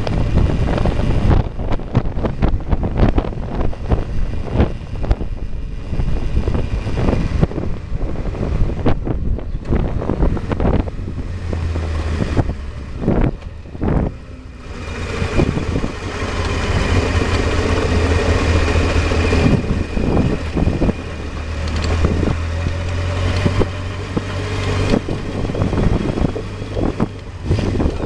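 Honda CBR600 F3's inline-four engine running as the motorcycle is ridden, under heavy wind buffeting on the helmet-mounted microphone. The sound dips briefly about halfway through, then the engine comes back steady and strong.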